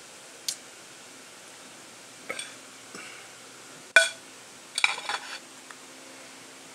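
Ceramic mug set down on a ceramic plate: a few small clicks, then a sharp ringing clink about four seconds in, followed by a short rattle of clinks as the mug and the metal cutlery on the plate knock together.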